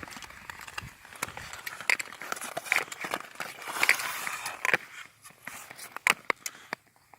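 Footsteps crunching, a step roughly every second, among scattered sharp clicks and crackles.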